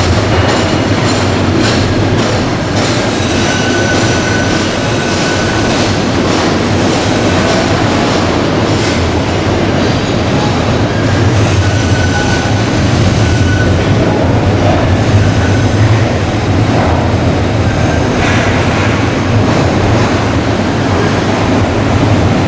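Freight train of bulk cement tank wagons rolling past at speed: a steady rumble of steel wheels on rail, with rhythmic clicks over rail joints in the first few seconds and a few brief, faint wheel squeals.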